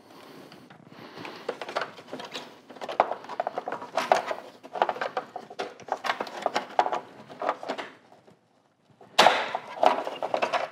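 Plastic clicking and rattling as a bumper wiring-harness connector and its push-in Christmas-tree clip are worked loose from the back of a plastic front bumper. The clicks come in quick runs, with a louder clatter about nine seconds in.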